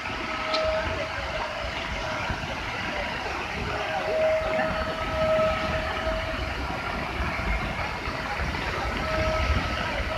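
Flood-swollen waterfall pouring down in a steady rush of water, with a faint high tone coming and going over it.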